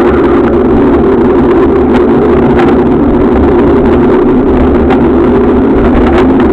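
Loud, steady rumble of wind and rolling vibration on a Maginon action camera's microphone, carried on a bicycle moving along a paved cycle path, with a few faint ticks.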